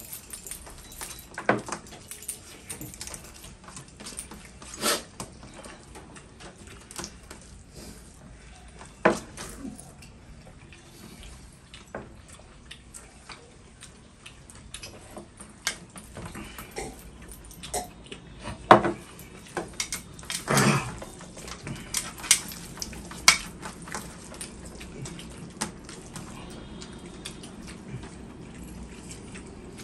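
Scattered clinks and taps of hands and metal rings against large steel thalis as two people scoop rice and eat by hand, with a few louder knocks among them and eating noises in between.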